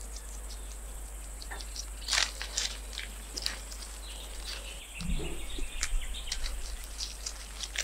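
Natural bush ambience: scattered short, high chirps and clicks over a faint steady hiss, with a brief lower sound about five seconds in.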